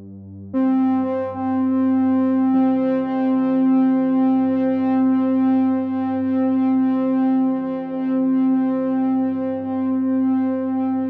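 Background music: a sustained synthesizer chord that swells in about half a second in, with its lower note changing a couple of seconds later.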